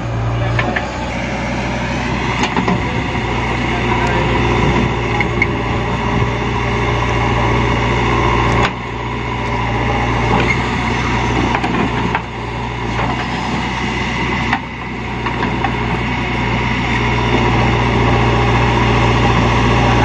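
JCB 3DX backhoe loader's diesel engine running steadily under load while the backhoe digs and loads soil. The sound drops and resumes abruptly twice, about a third of the way in and again past the middle.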